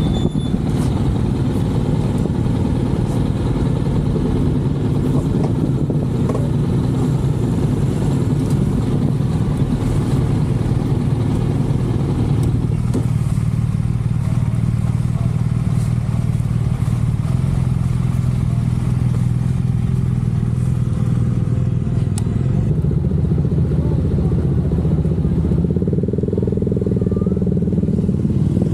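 Honda NC750X's parallel-twin engine idling steadily while the bike stands still.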